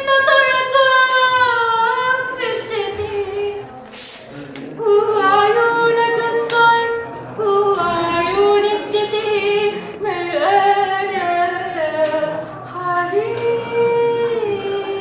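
A high female voice singing unaccompanied, long held notes that slide and waver between pitches, with short breaths between phrases.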